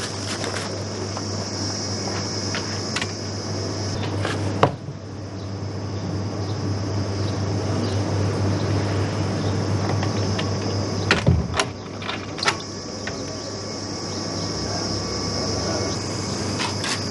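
Steady background hum with a high, even buzz, broken by a sharp knock about four and a half seconds in and a few more knocks between eleven and twelve and a half seconds in.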